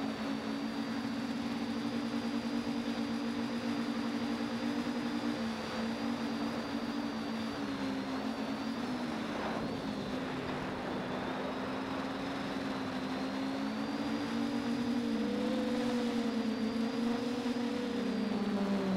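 Quadcopter's electric motors and propellers humming, heard from its own onboard camera over a rush of wind. The hum's pitch shifts as the motors speed up and slow down: it dips about halfway through and rises again near the end.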